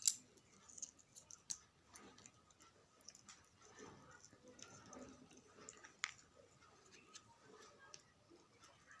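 A puppy eating: faint, irregular clicks and small chewing sounds, with a few sharper clicks.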